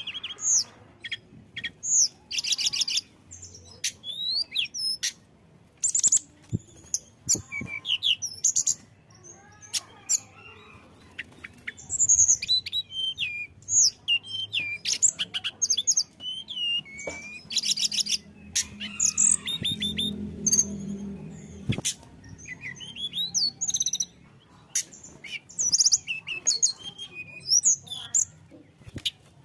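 Tledekan gunung songbird singing: a fast, varied run of high chirps and slurred whistles, broken by quick rattling trills, in bursts separated by short pauses.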